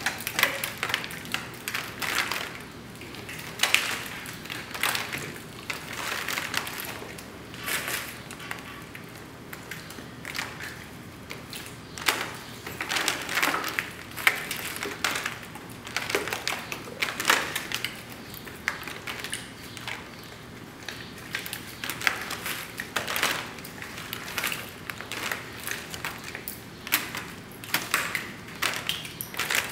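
Hammer striking a steel chisel to chip away a plaster waste mold: irregular sharp knocks in runs with short pauses between them.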